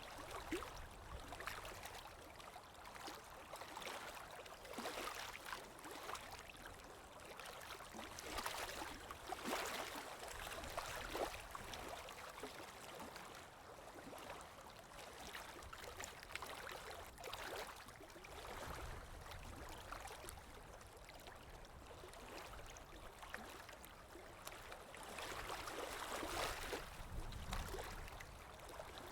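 Running water flowing steadily, with many small irregular splashes and trickles through it.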